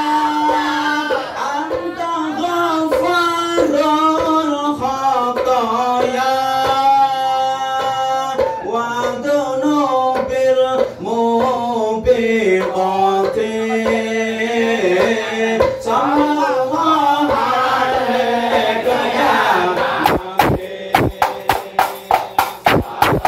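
A group of men singing ISHARI sholawat in unison, long drawn-out lines that wind up and down in pitch, unaccompanied. About twenty seconds in, terbang frame drums come in with quick, even strokes, about three a second.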